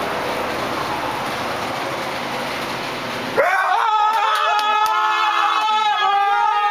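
Steady loud rushing noise that cuts off abruptly about three and a half seconds in, replaced by a voice singing a melody with held, gliding notes.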